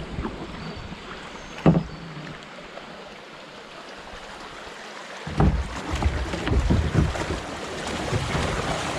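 Kayak pushing through fast flooded-creek water. There is one sharp knock about two seconds in, then from about five seconds on a rushing, splashing sound with rumbling bumps that grows louder, as the boat takes on water.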